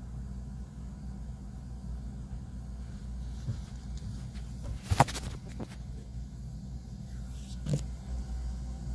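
A steady low hum, with a sharp knock about five seconds in and a softer knock near the end.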